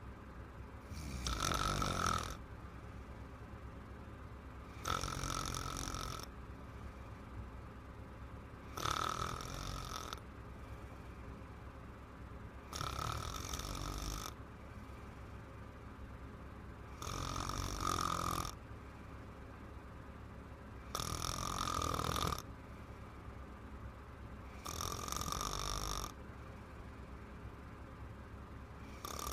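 A woman snoring in her sleep: about seven snores in a steady rhythm, one roughly every four seconds, each lasting just over a second. A low steady hum sits underneath between the snores.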